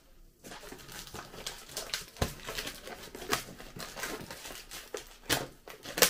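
Plastic shrink-wrap on a cardboard box crinkling and crackling as hands handle it and start peeling it off, with sharper crackles about two seconds in and again near the end.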